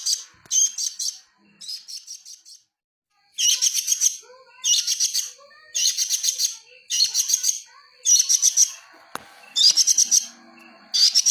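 A songbird calling in short bursts of rapid, high chattering notes, about one burst a second, with a brief pause about three seconds in.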